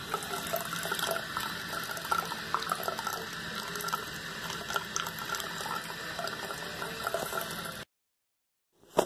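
Water running or trickling: a steady hiss dotted with many small ticks, cut off abruptly near the end.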